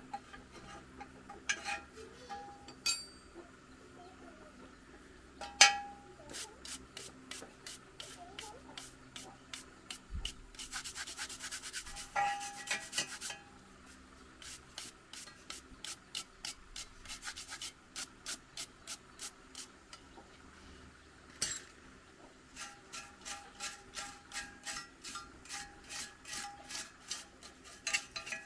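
A metal tool scraping and rubbing along the perforated steel screen of a rice grain separator in quick repeated strokes, with a few sharp clanks of metal on metal.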